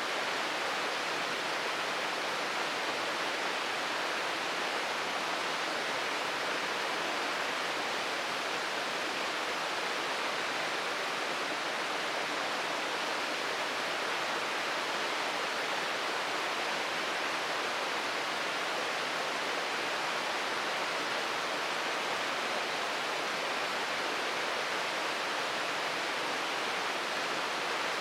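Shirogane Falls, a waterfall, pouring steadily: an even, unbroken rush of falling water.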